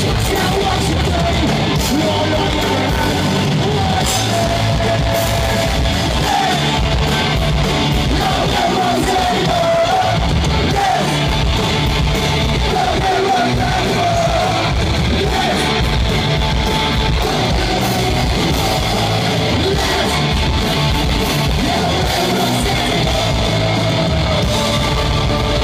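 Loud punk rock band playing live: distorted electric guitars, drums and shouted, yelled vocals, loud and unbroken throughout.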